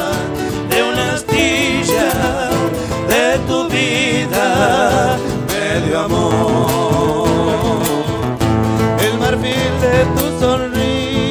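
Live Argentine folk music: acoustic guitars strummed and picked over bombo legüero beats, with voices holding long notes with vibrato.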